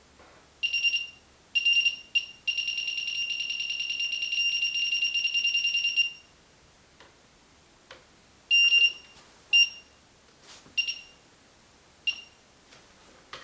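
Handheld RF signal detector beeping with a high electronic tone as it picks up a radio signal: a few short beeps, then one long fluttering beep of about three and a half seconds, then four more short beeps.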